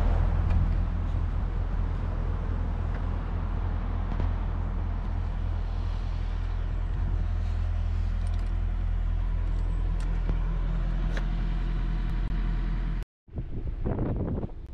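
A motor vehicle's engine idling close by, a loud, steady low hum that cuts off abruptly about thirteen seconds in. A short stretch of road and wind noise from a moving car follows.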